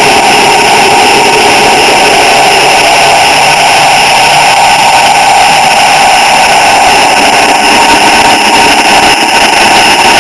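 H0-scale model train running along its track, heard through a camera riding on it: a loud, steady mechanical hum with a level whine.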